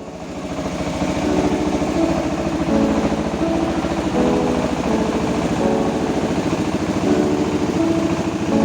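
Engine of a rice milling machine running steadily with a fast, even pulse, with a melody of music playing over it.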